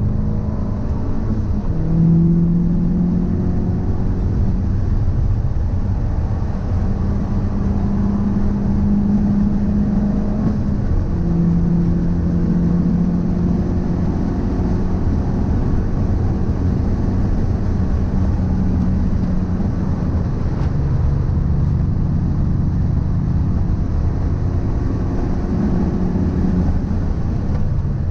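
Car on the move: road and drivetrain rumble with a steady droning hum that shifts in pitch a few times as speed changes. The owner suspects the noise comes from a drive shaft or a wheel hub bearing.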